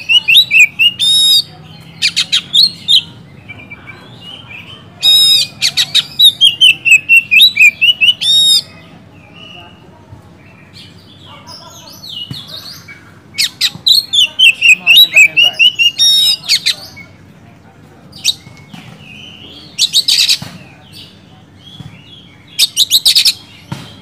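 Oriental magpie-robin (kacer) singing loudly in bursts of a few seconds: fast runs of sharp, whistled notes and chatter, broken by short pauses.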